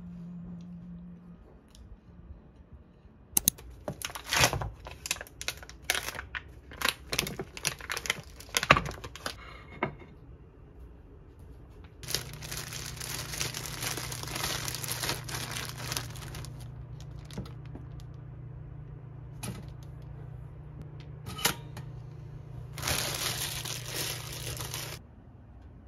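Crinkly plastic food packaging being handled and torn open, a run of sharp crackles. Then a kitchen appliance running with a steady low hum and hiss, which stops shortly before the end.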